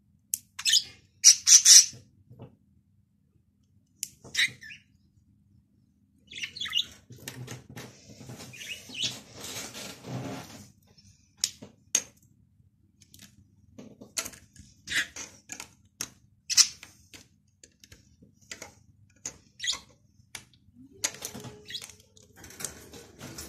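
A small bird chirping in short, scattered bursts, with light clicks and rustling of plastic LEGO bricks being handled.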